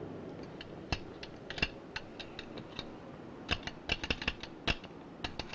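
Coin-operated chewing-gum vending machine being worked by hand: scattered sharp metallic clicks and rattles from the coin slot and turning mechanism, coming in a quick run after about three and a half seconds. The machine is jammed and drops no gum.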